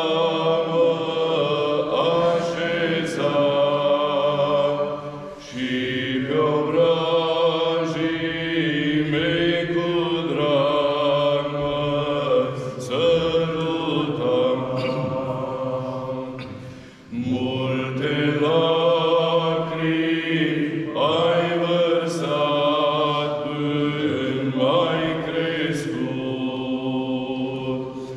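Male voices of Orthodox priests singing a slow Romanian hymn to a mother, unaccompanied, in long held phrases with short breaks for breath about five and seventeen seconds in.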